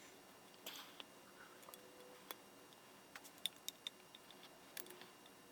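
Faint, scattered metallic clicks and taps from steel machine-vise parts (jaw, springs and bolts) being handled and fitted, most of them a few seconds in.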